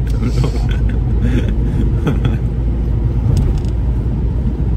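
Steady wind and road noise in an open-top convertible on the move: a low, even rumble of air buffeting the microphone over the tyres and engine.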